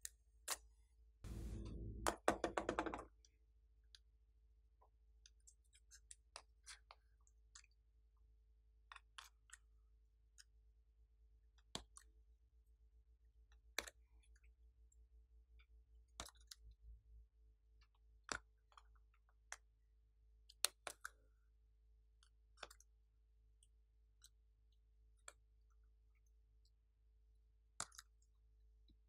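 Sparse light clicks and taps a second or two apart as fingers handle a glass dish, a silicone mold and small heart-shaped pieces set on glossy slime. About a second in comes a brief, louder squelch of the slime being pressed by hand.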